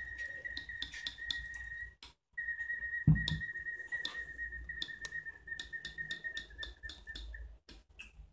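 Clockwork whistler automaton from the Black Forest whistling one steady high note, with a short break about two seconds in, as its wound spring mechanism runs. The mechanism ticks and clicks throughout, and there is a single thump about three seconds in. The whistle sags slightly and stops near the end as the mechanism winds down.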